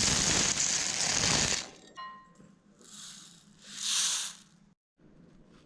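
Dry Coco Pops (chocolate puffed-rice cereal) poured into a bowl: a dense rattling pour for about a second and a half, then two shorter, softer rustling bursts around the middle.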